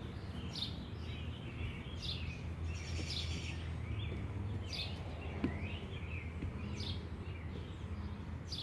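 Small birds chirping repeatedly: short high chirps, many dropping in pitch, every second or so, over a steady low background rumble.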